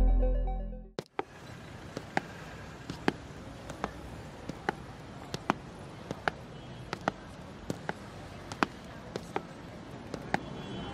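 Synthesizer music cuts off about a second in. After it comes a steady city street hum with sharp footsteps on pavement at a walking pace, a little under one step a second.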